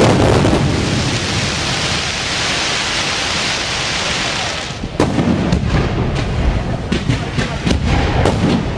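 Aerial fireworks: a dense, steady crackling hiss, typical of crackling-star effects, for about the first four and a half seconds, then a run of sharp bangs from shell bursts, roughly half a second to a second apart.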